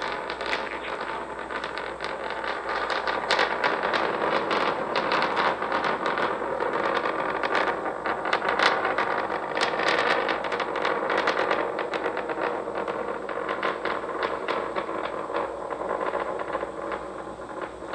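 Starship SN9's Raptor rocket engines firing on ascent: a steady, dense and irregular crackle.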